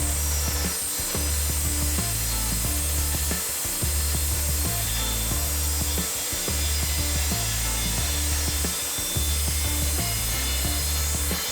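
Evolution R255SMS sliding mitre saw with its multi-purpose blade cutting through metal stock, a steady hissing cut, over background music with a regular bass line.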